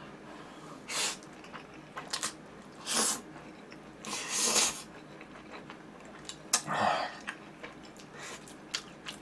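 A man slurping stir-fried curry ramen noodles off chopsticks: about four short, noisy sucking slurps, the longest about four seconds in.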